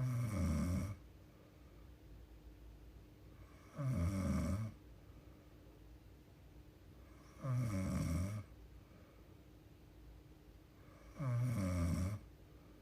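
A young woman snoring in her sleep: four snores of about a second each, evenly spaced about every three and a half to four seconds, with a faint steady hum underneath.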